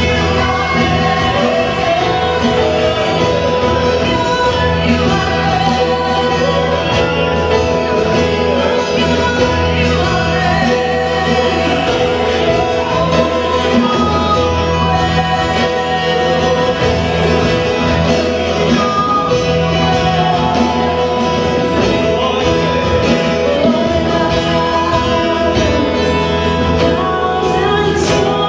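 Live acoustic worship band playing a song, with strummed acoustic guitars, a frame drum and a hand drum under singing voices.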